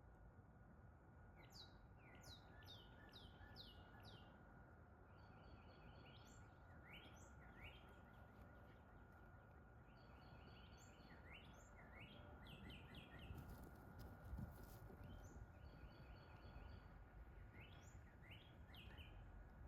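Songbirds singing: repeated series of quick down-slurred whistled notes and rapid trills, over a faint low rumble of wind. A faint steady high hum runs underneath, and a couple of faint clicks come a little past the middle.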